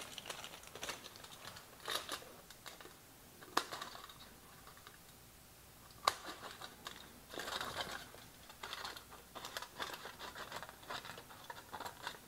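Aluminium kitchen foil being folded and cut with scissors into thin shims: faint scattered crinkling and rustling with a few sharp clicks, busier in the later part.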